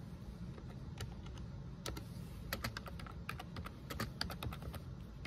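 Typing on a keyboard: a run of irregular key clicks, sparse at first and coming thick and fast through the second half, as a web search is entered.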